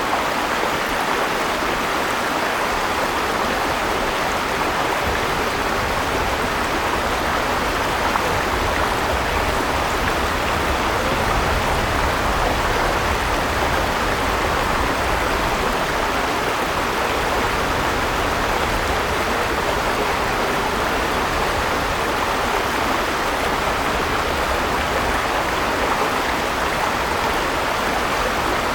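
River water flowing over stones, a steady even rush with a low rumble underneath.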